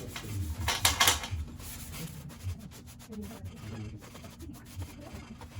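Scrubbing on an old, corroded aluminum light housing: two loud strokes in the first second or so, then quieter, irregular scraping and handling.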